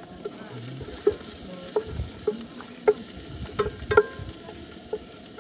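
Food sizzling as it fries in a pan while it is stirred, a utensil clacking sharply against the pan several times at uneven intervals.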